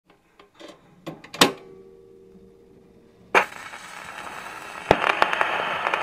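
A few light clinks, the loudest ringing on for about two seconds like china. About three seconds in comes a sudden whoosh, then a hiss with crackling that grows steadily louder: a kettle heating toward the boil.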